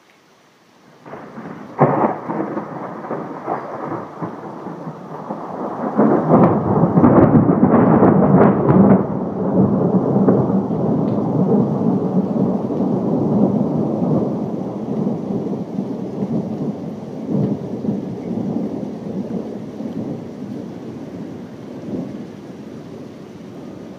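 Thunder: a sudden clap about a second in with a sharp crack, loudest with crackling around six to nine seconds in, then a long rolling rumble that slowly fades.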